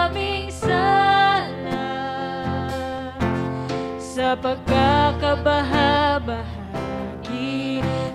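Live worship song sung in Tagalog by a woman with a small band, acoustic guitar among it.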